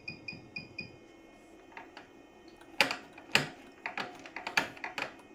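Sakura Stitch programmable sewing machine beeping in short even pips, about three a second with a soft knock under each, stopping about a second in; then a run of irregular sharp clicks and taps, the loudest about three seconds in.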